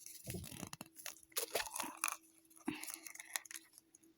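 Plastic toy packaging rustling and crinkling as it is handled and torn open, in short irregular crackles.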